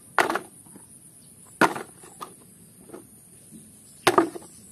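Hard plastic toy vehicles knocking against each other and a plastic basin as they are dropped in: three loud knocks a second or two apart, with fainter clatters between.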